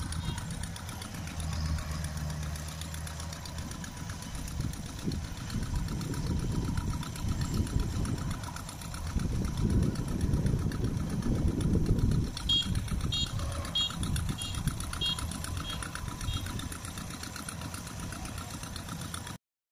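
Kubota DC93 rice combine harvester's diesel engine running steadily as it harvests, growing louder for a few seconds about halfway through.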